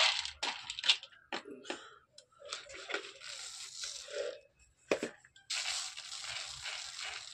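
Small firework stars (pyrotechnic pellets) poured from a plastic tub onto a wire-mesh sieve and shaken back and forth to sift out the small ones. The pellets rattle and scratch over the mesh and the plastic sheet crinkles, in three stretches, with a sharp click about five seconds in.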